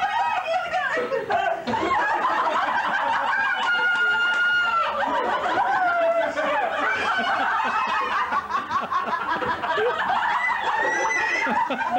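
Several people laughing and chattering at once, their voices overlapping without a pause.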